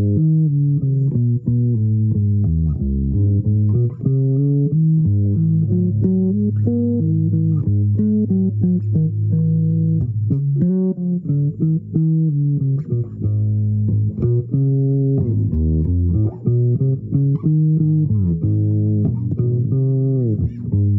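Improvised melody played on a low-pitched plucked string instrument, one note at a time, with a few notes sliding down in pitch in the second half.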